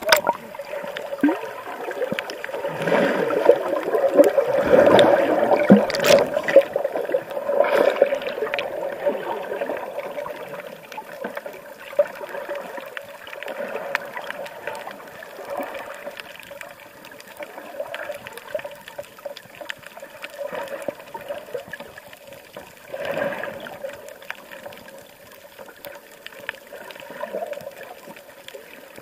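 Muffled water gurgling and sloshing around a camera held underwater. It swells louder a few seconds in and again later, with small scattered clicks.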